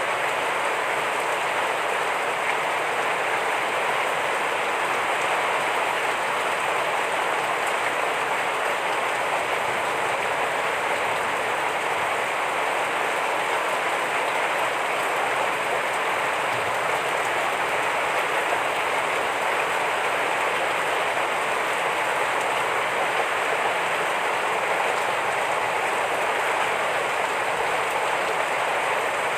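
Heavy rain falling steadily: a dense, even hiss of drops with no let-up or change.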